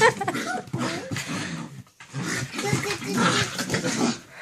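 Two puppies vocalising as they play-fight rough. The sound comes in two loud stretches, with a brief break a little before the middle.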